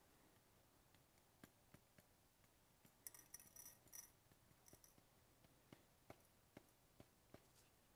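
Faint handling of a digital pocket scale and its small plastic weighing dish: a brief cluster of light clinks about three seconds in, then a run of soft clicks, about two a second, as the scale's buttons are pressed.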